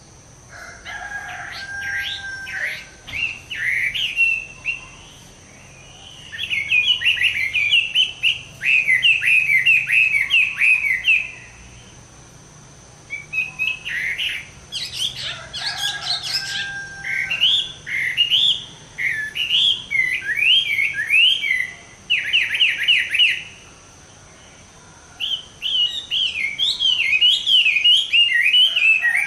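Chinese hwamei, a bird in moult, singing in bursts of rapid, varied whistled phrases with short pauses between them.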